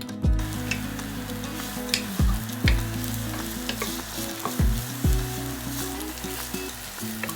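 Food sizzling in a frying pan as it is stirred, with scattered clicks of the utensil against the pan and a few short low thumps.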